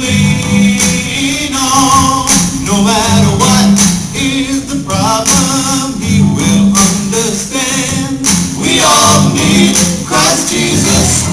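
A gospel song with singing over a steady beat, and a tambourine shaking throughout.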